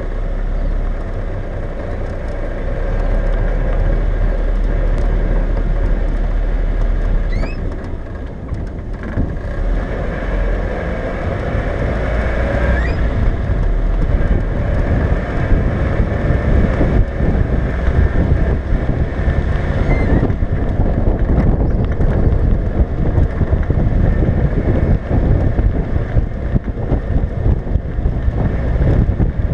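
1979 Land Rover Series 3 109-inch running as it drives along, its engine and road noise mixed with wind buffeting the bonnet-mounted camera's microphone. The level dips briefly about eight seconds in, then builds again.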